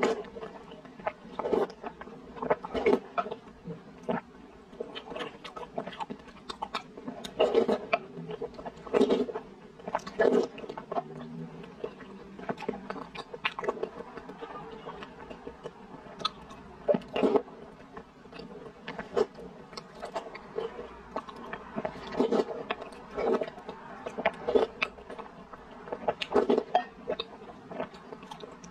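Close-up eating sounds from a person slurping and chewing soft, sticky glutinous rice balls in a milky soup, taken from a wooden spoon. The sounds come in short, irregular bursts every second or two.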